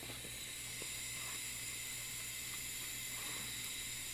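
Thin stream of tap water running into a bathroom sink, a steady hiss, with a few faint soft ticks of a cat lapping from the stream.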